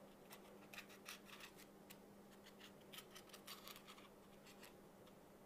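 Faint scratching of a marker pen on a thermocol (polystyrene) block, in many short strokes as a square is marked out in dashes, over a faint steady hum.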